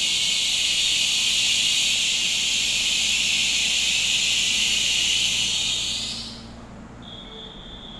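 Taiwan Railways EMU3000 electric multiple unit braking as it pulls into the platform: a loud, steady, high-pitched brake hiss that dies away about six seconds in as the train comes to a halt. A steady high tone follows for about two seconds near the end.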